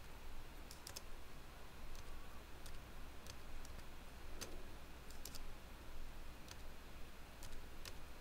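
Faint clicks of a computer mouse, a dozen or so spread out, some close together in pairs like double-clicks, over a low steady hum.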